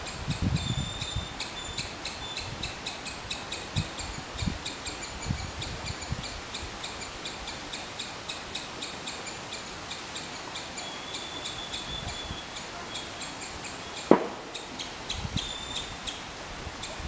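Three-striped palm squirrel calling: a long run of short, high chirps repeated several times a second. A single sharp sound falling quickly in pitch stands out about fourteen seconds in.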